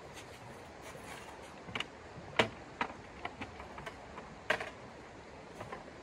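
Irregular sharp clicks and knocks from camp gear being handled and set down, the two loudest about two seconds apart, over the steady rush of a shallow creek.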